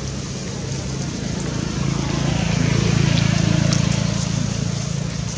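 A low engine hum, swelling to its loudest about halfway through and then easing off.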